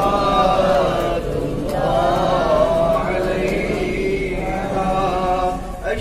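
Men's voices chanting a devotional recitation together in long, drawn-out melodic lines, led by one voice on a microphone.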